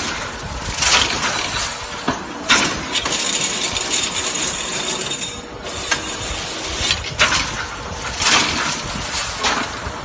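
Automatic crimped wire mesh weaving machine running: a steady, dense mechanical clatter with sharper clanks at irregular intervals of about one to two seconds.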